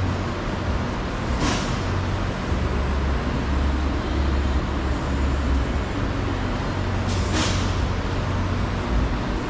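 Steady low rumble of a running vehicle engine or nearby traffic, with two short hisses about six seconds apart.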